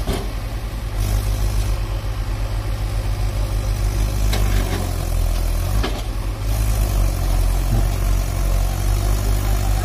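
Diesel engines of a JCB backhoe loader and a farm tractor running steadily with a low pulsing throb, with a couple of short knocks about four and a half and six seconds in.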